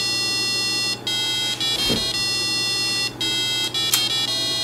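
A tune of buzzy square-wave tones generated by an ESP8266 and played through a small oval loudspeaker. The pitch changes from note to note, with short breaks between the notes. A sharp click comes about four seconds in.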